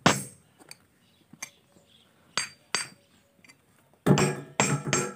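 Hammer striking a steel axe head, metal on metal with a short ringing clink. There is a hard blow at the start, a few lighter taps, then heavier blows about half a second apart near the end.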